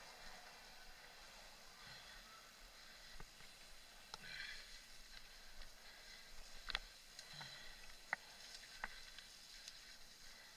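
Mountain bike ridden on a dirt forest singletrack, heard faintly: a steady hiss of riding with several sharp clicks and knocks from about four seconds in, typical of the bike and camera rattling over bumps.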